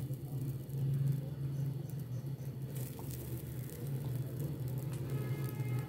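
A block of butter rubbed and scraped across a pan, crackling lightly as it melts and greases the surface, over a steady low hum.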